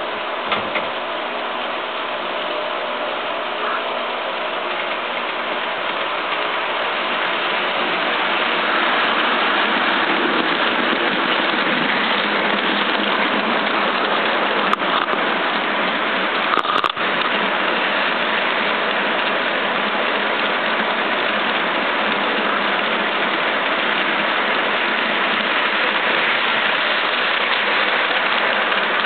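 Three-rail model freight train rolling past close by, its metal wheels rattling and rushing along the track. The noise grows louder about eight seconds in as the tank cars come alongside, with a couple of sharp clicks about halfway through.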